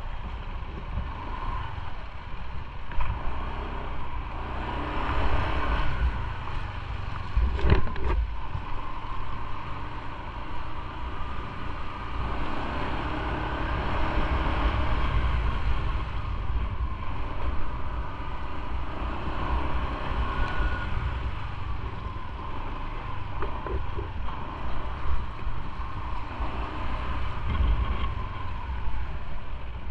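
Motorcycle riding along: the engine runs with a steady rush of wind on the microphone, and there is one brief knock about eight seconds in.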